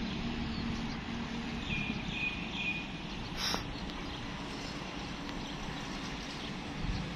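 Outdoor background noise with a low steady hum in the first couple of seconds, three short high chirps about two seconds in, and a single sharp click a little after.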